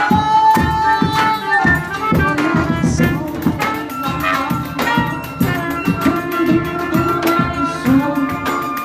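Instrumental passage of a small acoustic band: wind instruments hold long notes over a steady beat of hand percussion, pandeiro and zabumba. One long note sounds at the start, and a higher one is held through the middle.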